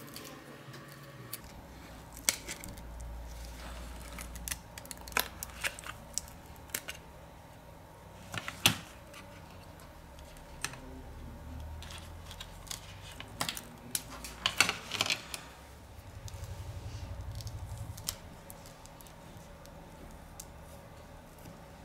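Scattered small clicks and ticks of hand tools on a OnePlus 3T's broken screen as it is separated and removed from the phone. The clicks come irregularly, with the loudest about a third of the way in and a close cluster a little past the middle. A brief low hum follows about two-thirds through.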